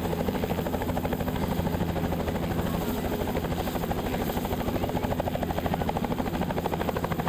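Helicopter with its rotor turning: a fast, even beat of the blades over a steady engine hum.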